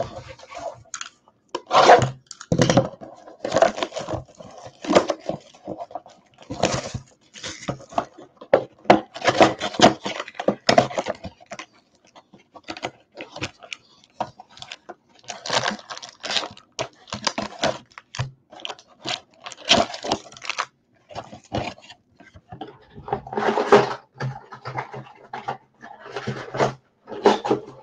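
Hands tearing the plastic wrap off a cardboard trading-card box, opening the box and pulling out the foil card packs: irregular rustling, crinkling and tearing with light knocks of cardboard.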